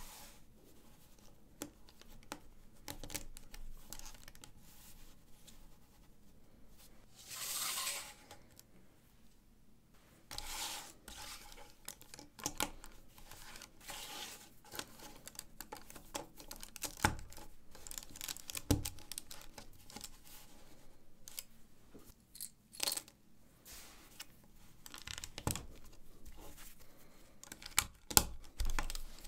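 LEGO 1x4 plates clicking and clattering as they are handled and pressed together, in irregular small clicks with a few louder knocks. There is a short louder rattle about eight seconds in.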